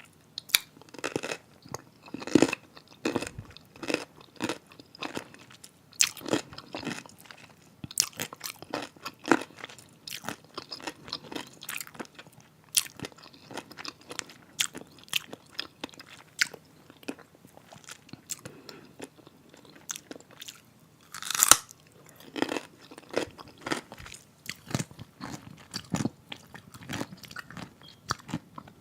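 Close-miked crunching and chewing of a crunchy pickle: irregular sharp wet crunches one after another, with one especially loud bite about three quarters of the way through.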